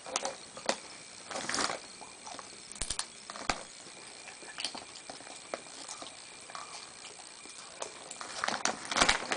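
Crinkling of a foil potato-chip bag and the crunch of chips as a toddler digs in and eats, in scattered short bursts that come thickest near the end.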